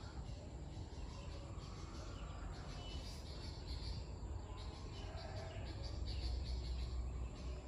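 Quiet outdoor ambience: a steady low rumble with faint high chirps scattered through it.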